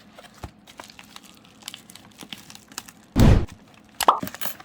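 Trading-card packaging being handled and opened: small rustles and clicks, a loud thump about three seconds in, then a few sharp cracks near the end.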